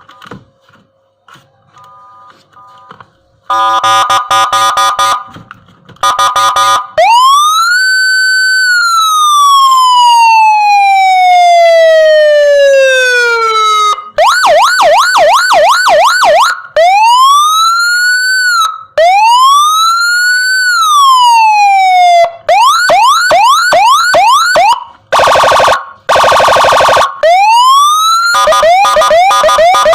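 Senken CJB electronic siren module sounding loudly through a TOA ZH610S horn speaker, switched through several tones after a few faint clicks. It starts with a buzzy warble, then a long wail that rises, holds and falls slowly, fast yelps, more rising-and-falling wails, and a harsh horn-like blast near the end.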